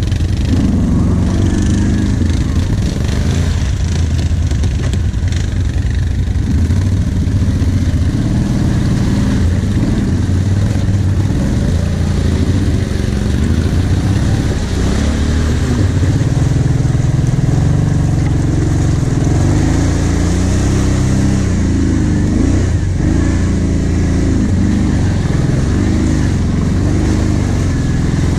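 ATV engine running under load as the quad drives through mud, its revs rising and falling the whole time, with the pitch swinging more in the second half.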